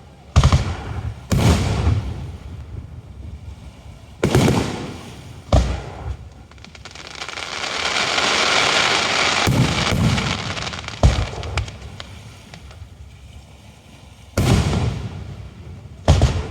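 Fireworks display: aerial shells bursting one after another, about ten loud bangs, each trailing off in a rolling echo. In the middle a hissing crackle swells up and fades over a few seconds.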